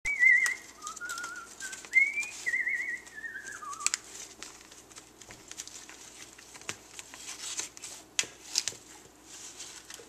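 An African grey parrot whistles a run of wavering, gliding whistles for about four seconds, ending on a falling note. After that comes the rustle, crackle and sharp clicks of its beak tearing apart a cardboard playing-card box.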